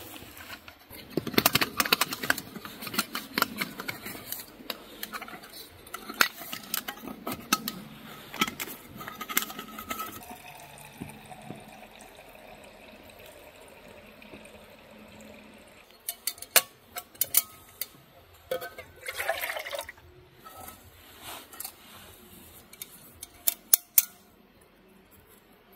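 Metal camp pots, lids and mugs clinking and scraping as they are handled and set down, with water poured into a metal mug for a couple of seconds past the middle.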